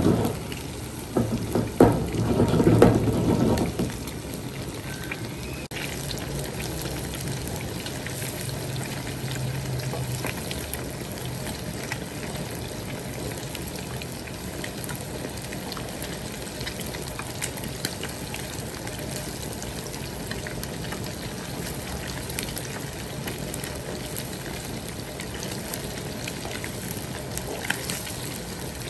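Battered fish pieces deep-frying in hot oil in a wok, a steady sizzle. For the first few seconds, while the pan is held and moved by its handle, the sound is louder and rougher.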